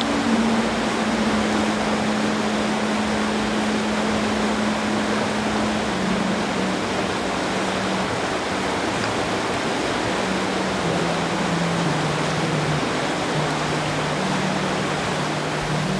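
Brook water rushing steadily and loudly. Under it, slow music of long held low notes steps gradually down in pitch.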